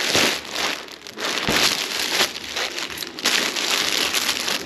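Clear plastic garment bags crinkling as hands rummage through bagged clothing in a cardboard box: a continuous rustle that swells and dips unevenly.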